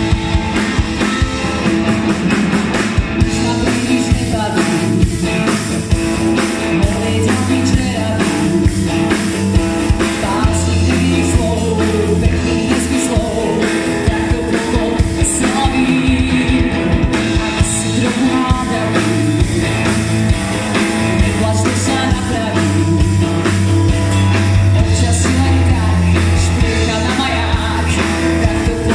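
Live pop-rock band: a woman singing over electric guitar, drum kit and electric keyboard, with a steady beat throughout.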